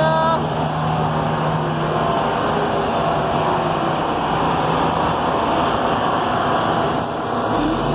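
Steady city street traffic noise: a continuous rumble of passing road vehicles and running engines, with a low steady hum under it.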